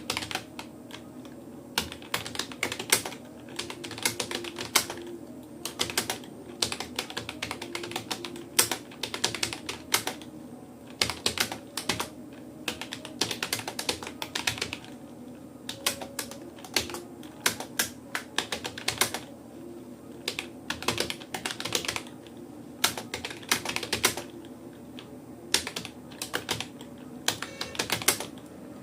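Typing on a Rapoo computer keyboard: keystrokes clicking in uneven runs with short pauses between words, at an unhurried pace, over a faint steady low hum.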